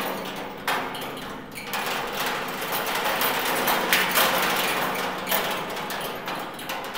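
Motor-driven spoons and wire rattling and scraping against a rusty, perforated steel oil drum: a continuous metallic clatter with louder strikes at uneven intervals.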